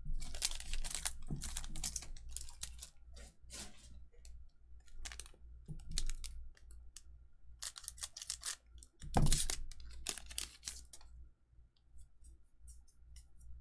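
Weiss Schwarz trading cards being flicked through and laid onto piles: a run of light, dry card clicks and slaps, busiest in the first second or two and again around nine to ten seconds in, sparser near the end.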